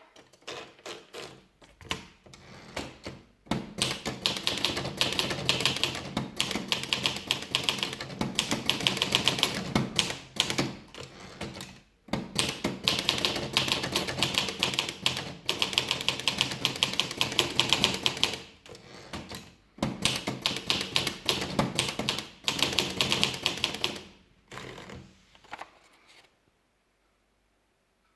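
Olivetti Lettera DL manual portable typewriter being typed on: rapid, dense keystrokes, sparse at first, then fast and steady with a few short pauses, stopping shortly before the end.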